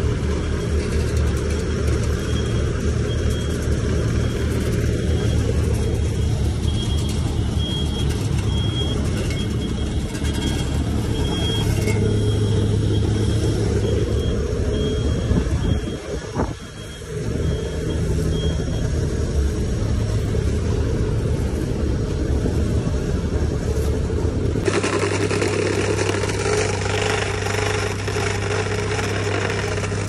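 Heavy road-construction machinery engines running steadily at an asphalt paving site, broken by a short dip about halfway through. In the last few seconds the sound changes to a small engine running, consistent with a plate compactor.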